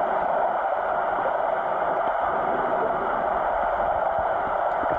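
Steady, muffled rushing of water, picked up by a camera held underwater in shallow surf.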